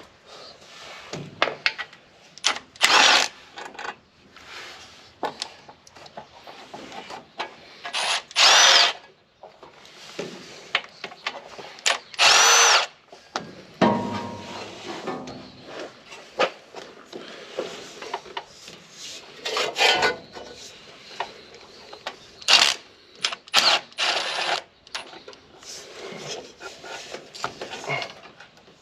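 A handheld power tool run in about half a dozen short bursts of roughly a second each, several with a whine that rises and falls, spinning bolts out of an engine. Smaller metallic clicks and clatter come between the bursts.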